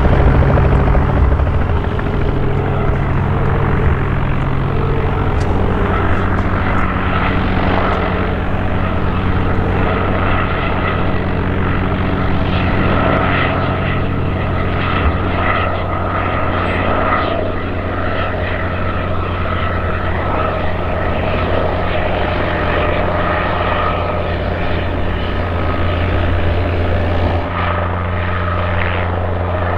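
Guimbal Cabri G2 light helicopter hovering low as it comes in to land: a steady drone from its piston engine and rotors, with a high steady whine on top.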